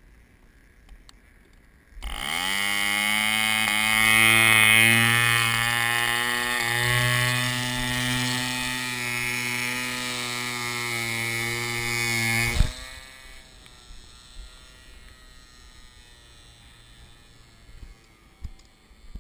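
Mills 1.3cc model diesel engine on a free-flight model plane starting about two seconds in, quickly rising in pitch and then running steadily. About twelve and a half seconds in it drops sharply to a faint distant drone as the plane flies away.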